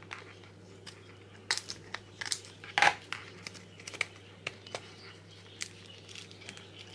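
Small clear plastic box of earring findings being handled and worked open by hand, with scattered small plastic clicks and crinkles, the loudest about three seconds in.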